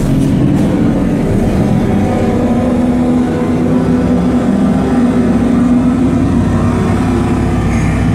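A film's vehicle-chase soundtrack playing through home-cinema loudspeakers: car and truck engines running hard in a steady, dense din.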